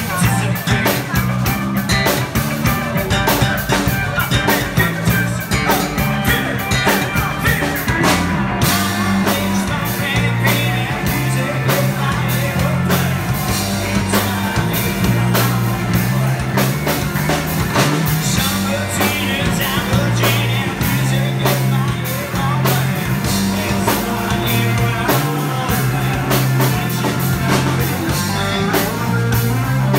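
Live rock band playing: a singer over electric guitars, a steady drum beat and a moving bass line.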